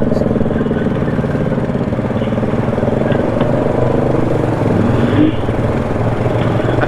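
ATV engine running steadily under way on a trail, its pitch rising briefly about five seconds in.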